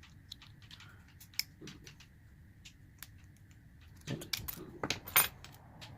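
Small metallic clicks and scrapes of a tool working at the retaining circlip on a Kryptonite padlock's cylinder. They are sparse at first, then come thicker and louder in a cluster about four to five seconds in.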